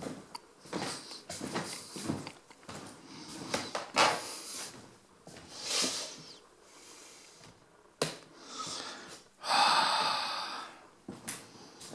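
A person's breathing close to the microphone, irregular and noisy, with a louder rushing breath about nine and a half seconds in.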